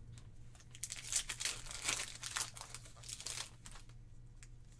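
A foil Pokémon booster pack is torn open and crinkled, giving a run of sharp crackling and ripping for about three seconds. The crackling then dies down to quieter handling of the cards.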